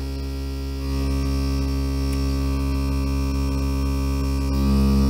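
Gibson EH-185 tube guitar amplifier, from around 1941, putting out a steady hum and buzz through its speaker with the volume up. It steps louder about a second in and again near the end. The restorer has a hunch that the worn-out input jacks are causing the buzzing.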